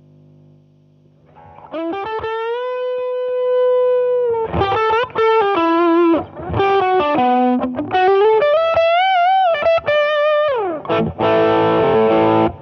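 Electric guitar played through a JSA Effects Hot Toddy overdrive pedal. After a short hum, a long held note rings out, then comes a lead phrase with bends and vibrato and a slide down. An overdriven strummed chord is cut off sharply at the end.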